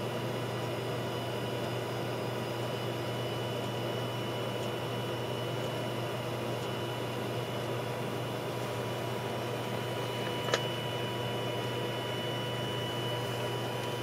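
Steady low hum with a background hiss, and one short click about ten and a half seconds in.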